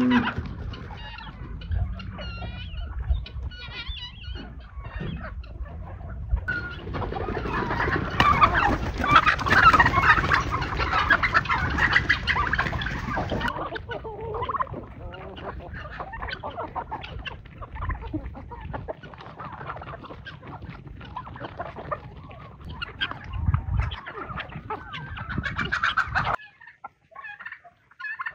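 A large flock of chickens and other poultry clucking and calling over one another. The chatter grows denser and louder about a third of the way in, then breaks off abruptly near the end to a quieter few calls.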